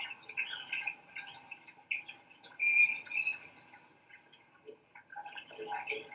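A crowd applauding and cheering, played back through a television's speakers.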